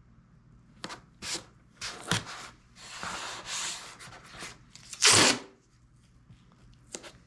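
Painter's masking tape being pulled off the roll and rubbed down by hand: a string of short papery rasps and rubs, the loudest about five seconds in.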